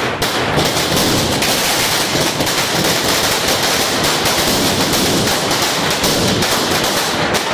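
Firecrackers going off in a rapid, unbroken run of sharp bangs, like a long string of crackers.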